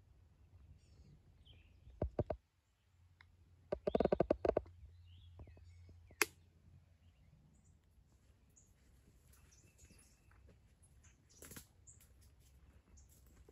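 Faint birds chirping, with a few sharp clicks and a quick rattling run of knocks about four seconds in.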